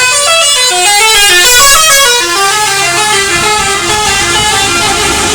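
Bus's Basuri telolet musical horn playing a fast tune, loud, its notes stepping up and down about five a second.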